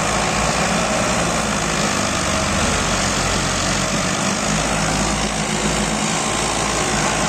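Massey Ferguson tractor's diesel engine running steadily at a low, even speed.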